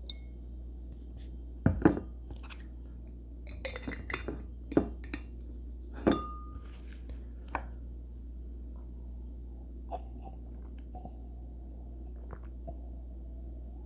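Glassware clinking and knocking: a few sharp clinks spread over several seconds, one about six seconds in ringing briefly, over a low steady hum.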